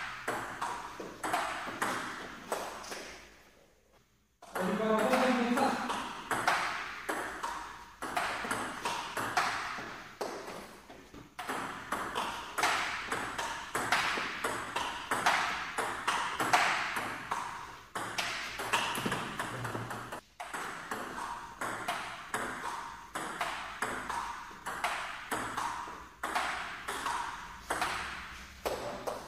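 Table tennis rally: the plastic ball clicking in quick succession off the table and the bats, one faced with antispin rubber. The rally breaks off briefly about four seconds in, then the clicking resumes.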